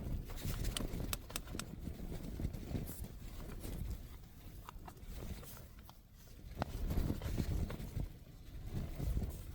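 Gusting wind rumbling on the microphone, swelling and easing every few seconds, with a few faint clicks about a second in.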